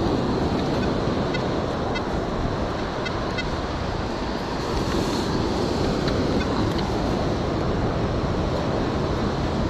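Steady wash of surf and wind on the microphone, with a few faint, short, high-pitched tones in the first few seconds.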